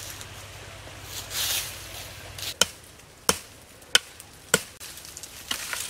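A machete chopping into a sapling's stem: four sharp blows about two-thirds of a second apart.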